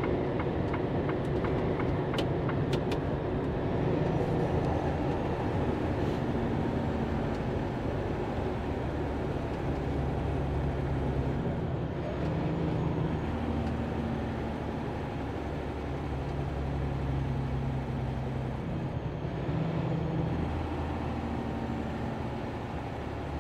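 Semi-truck engine running under way, its low drone stepping up and down in pitch several times as the revs change, with a few short clicks about two to three seconds in.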